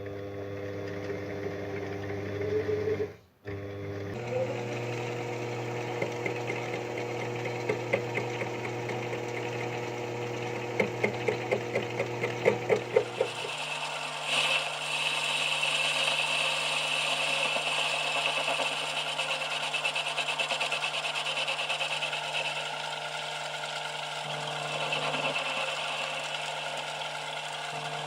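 A lathe running with a steady motor hum, with a quick run of ticks about eleven to thirteen seconds in. From about fourteen seconds the hum changes pitch and a harsher, higher scraping sound joins it as the tool cuts the aluminium workpiece.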